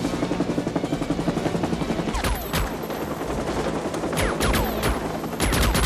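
Helicopter rotor beating fast and evenly, then from about two seconds in, bursts of automatic rifle fire in quick clusters over it, some shots trailed by a falling whine.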